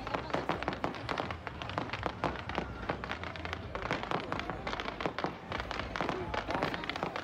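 Fireworks going off in a dense, continuous crackle of many small sharp pops, several a second, with no pause.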